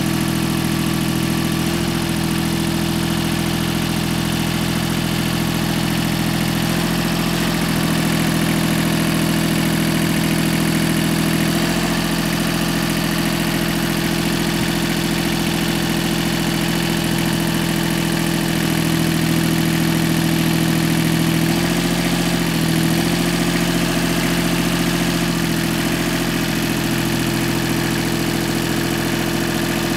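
Iseki 2160 compact tractor's diesel engine running steadily, its note shifting slightly a few times.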